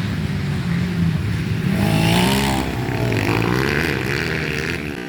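Trail-bike engines racing, revving up and down, with one bike revving higher about two seconds in.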